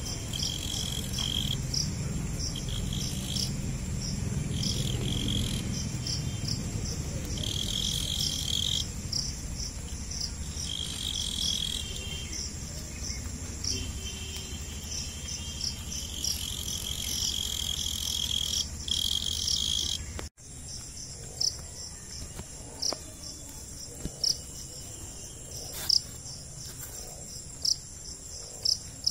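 Crickets chirping: short high chirps repeating about twice a second, with longer buzzing trills coming and going during the first two-thirds. After a cut about two-thirds through, the chirping continues alone, with a few sharp clicks.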